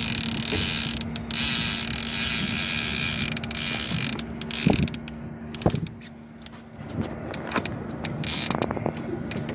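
Fishing reel being cranked under load against a sturgeon on a deeply bent rod, its gears whirring and clicking over a steady low hum. Two sharp knocks come about five and six seconds in.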